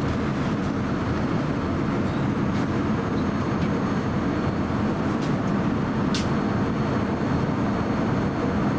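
Steady, even cabin noise inside a Boeing 787-10 airliner, a low rushing sound that holds level throughout, with a faint short click about six seconds in.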